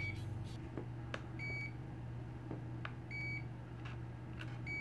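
OWON OW16A multimeter's non-contact voltage (NCV) detector beeping as it senses the live power cord: three short, high beeps about a second and a half apart, over a steady low hum.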